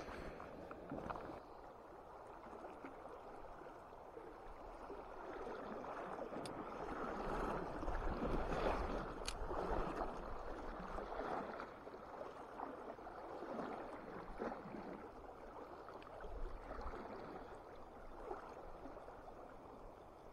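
River water flowing over a stony bed, swelling for a few seconds near the middle, with a few faint clicks.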